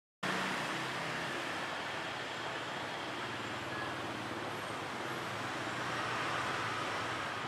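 Steady outdoor street ambience, an even wash of traffic noise that cuts in suddenly a fraction of a second in and holds level.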